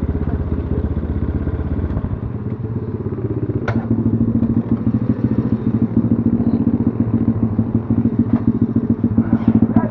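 BSE Z6 enduro motorcycle engine running at a steady low speed, its beat becoming steadier and a little louder about four seconds in, with one sharp click at about the same moment.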